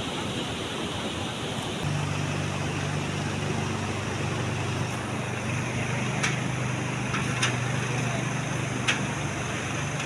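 Steady rushing of water, with a low steady hum setting in about two seconds in. Three sharp clicks come in the second half.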